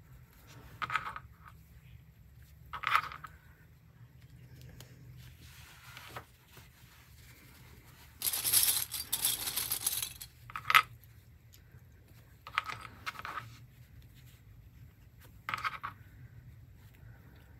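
Small plastic sewing clips being clipped onto the edge of fabric and mesh, a handful of separate short clicks spread across several seconds. About eight seconds in comes roughly two seconds of rattling and rustling, the loudest part.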